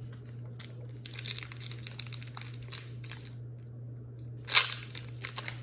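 Foil wrapper of a Pokémon trading-card booster pack crinkling as it is handled and torn open, with a louder rip about four and a half seconds in.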